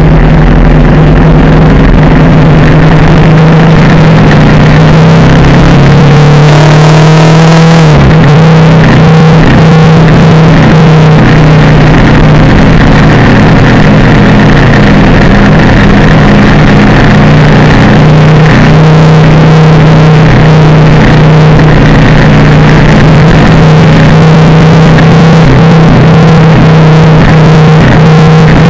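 Motorcycle engine running at a steady cruising speed. About seven seconds in, the engine note climbs briefly and then drops sharply, as at a gear change, before settling back to a steady note.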